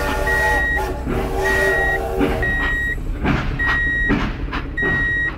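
Vehicle reversing alarm beeping at an even pace, five high beeps about once every 1.2 seconds over a steady low engine rumble, with a few knocks partway through.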